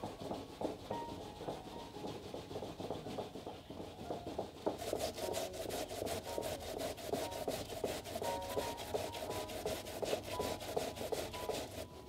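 Raw sweet potato rubbed back and forth on a wooden-framed metal hand grater over a basin of water, grating it to pulp for sweet potato starch. It makes a continuous rasping scrape that, about five seconds in, turns into a fast, even run of sharp strokes, roughly seven a second.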